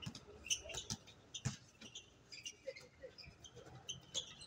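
Basketball players' sneakers squeaking in short, high chirps on the court surface, mixed with scattered sharp taps and a few dull thuds of the ball bouncing.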